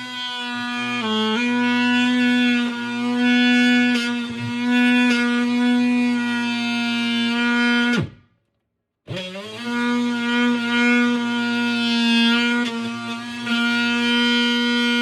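DeWalt oscillating multi-tool running and cutting into the base of a kitchen cupboard, a steady high buzz. About eight seconds in the trigger is let go: the pitch falls away to silence for about a second, then the tool spins back up and carries on cutting.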